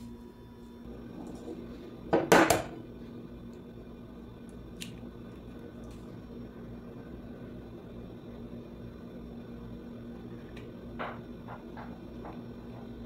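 An egg cracked sharply against the rim of a glass bowl about two seconds in. Later come a few small clicks of eggshell halves as the yolk is passed between them, over a steady low hum.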